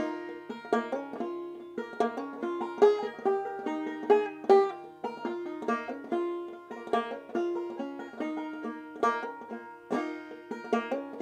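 Solo banjo, plucked notes picking out the tune of an English folk song as an instrumental passage without singing.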